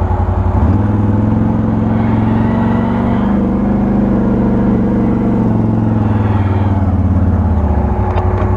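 Can-Am Outlander 1000 XT-P ATV's V-twin engine pulling under throttle: the revs rise about a second in, hold there, and ease off near the end.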